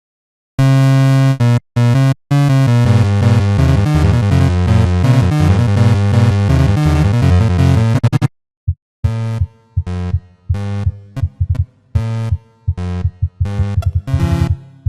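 Remixed, synthesized emergency-alert alarm: a loud, harsh chord of many stacked tones held for about eight seconds, cut out twice briefly near the start. After a short break it comes back chopped into rapid, stuttering repeated bursts.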